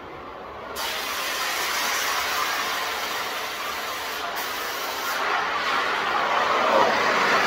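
Oxyacetylene cutting torch flame hissing steadily. It jumps up in level about a second in and grows louder near the end, as the torch is brought to a cast part for a test cut to tell cast steel from cast iron.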